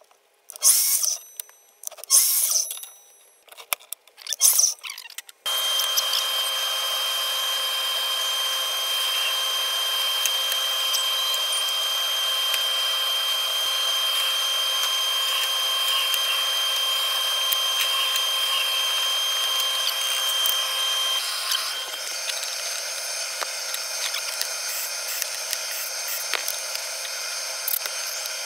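Three short, loud bursts of an Evolution electric miter saw cutting plywood, then a bench power tool motor running steadily with a constant high whine.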